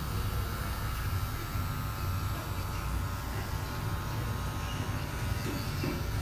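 Cordless hair clipper buzzing steadily as it cuts hair at the nape, its adjustable blade lever set to the closest cutting position for the fade.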